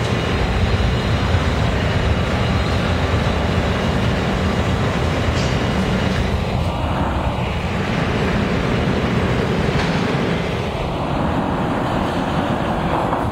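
New York City subway A train pulling into an underground station, its wheels and running gear rumbling steadily on the rails as it approaches the platform.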